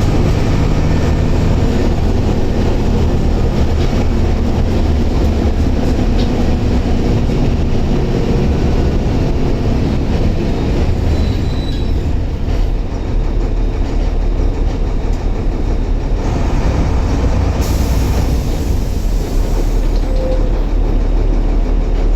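Mercedes-Benz OF-1721 Euro II bus's diesel engine running steadily with heavy rumble and rattle. A hiss joins in for a few seconds after the middle.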